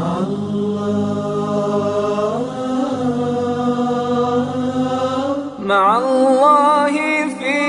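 Chant-like vocal music: long held sung notes, then about five and a half seconds in a voice enters with wavering, ornamented melodic runs.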